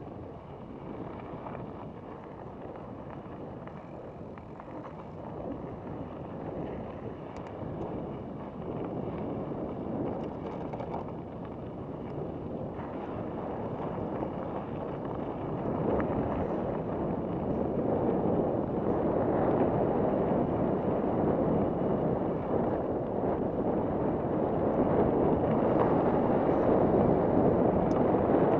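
Wind rushing over an action camera's microphone as a mountain bike rides down a dirt singletrack, with the rumble of the tyres on the trail, growing steadily louder as the bike picks up speed.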